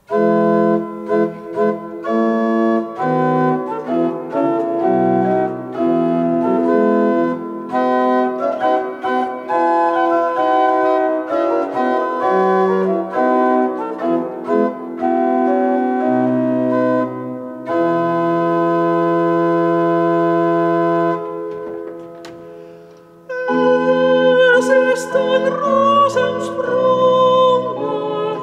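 Pipe organ playing a chordal prelude that ends on a long held chord, which dies away about three quarters of the way through. Near the end a man's voice begins singing over the organ accompaniment.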